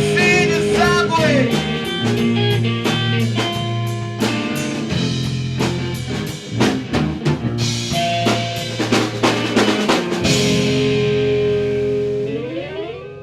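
Rock band music with electric guitar, bass and drum kit playing the closing bars of a song. The drumming stops about ten seconds in on a held chord with a cymbal wash, and near the end the notes slide upward in pitch as the sound fades.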